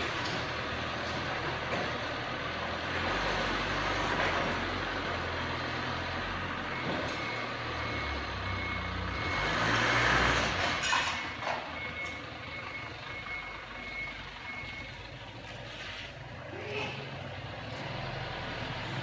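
Forklift engine running under load, with a loud scraping, crunching burst about halfway through as the forks dig into a pile of dirt and debris. Its reversing alarm beeps in a steady run through the middle.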